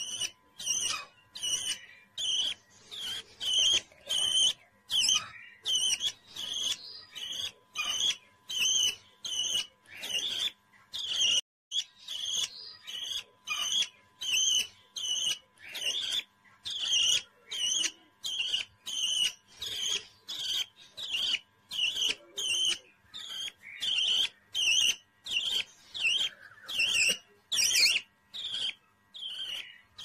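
Baby budgerigar chirping over and over, about two short high chirps a second.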